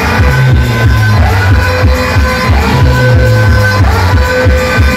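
Loud electronic dance music with a heavy, steady bass beat, played through a large DJ sound system of horn loudspeakers and bass cabinets.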